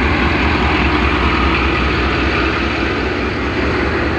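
Diesel locomotive engine idling steadily, heard up close beside its hood, with a loud low rumble.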